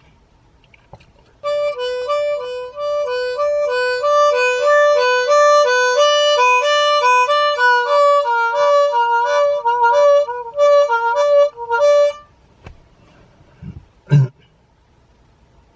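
Harmonica imitating a hi-lo ambulance siren: two notes alternating quickly and evenly for about ten seconds before it stops. A short low thump follows a couple of seconds later.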